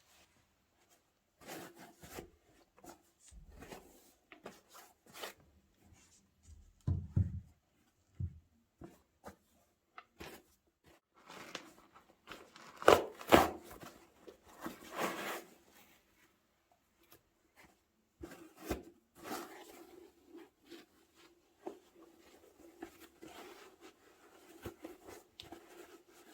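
Hands handling a pair of trainers and their packaging: on-and-off rustling and rubbing with light clicks and knocks, the loudest rustles about halfway through.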